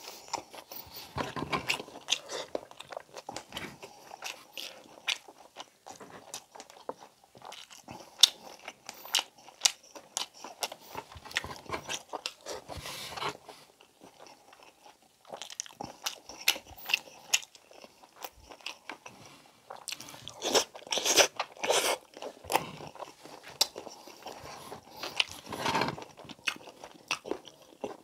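A man chewing and biting braised pork belly (pork humba) and rice eaten by hand: a dense, irregular run of short mouth sounds, loudest in a stretch about two-thirds of the way through.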